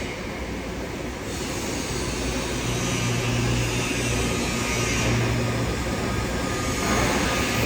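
TIG (argon) welding on a pipe root pass: a steady hiss with a low electrical hum that grows louder about three seconds in.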